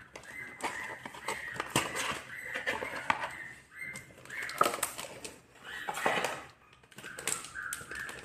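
Cardboard box and inner packaging rustling, scraping and knocking as a smart display is pulled out of its box, with the loudest handling knocks in the middle. Short rising chirps repeat about twice a second at the start and again near the end: a bird chirping.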